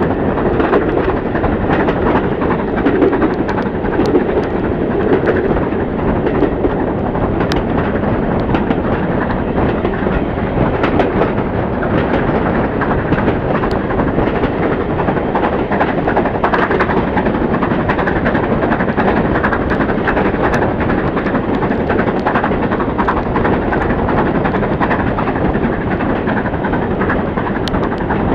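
Train running at speed behind the steam locomotive 70013 Oliver Cromwell, a BR Standard Class 7 'Britannia' 4-6-2, heard from a carriage window as a loud, steady rush of locomotive, wheels on rail and wind. Scattered sharp clicks come from char thrown out of the smokebox striking the camera.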